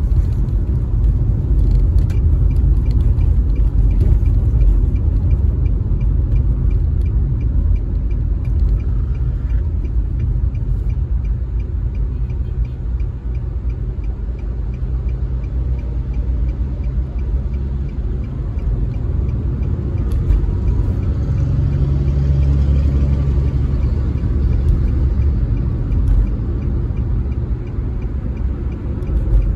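Car driving at speed, heard from inside the cabin: a steady low rumble of tyre and engine noise.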